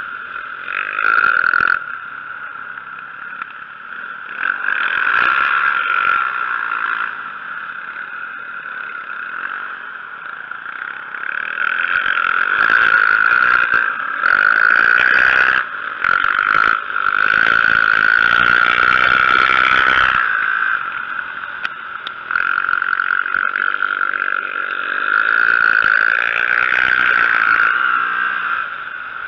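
Dirt bike engine heard from on board while riding an ice track, the throttle opening and closing in repeated swells. It is loudest in a long stretch in the middle, where a rushing noise lies over the engine note.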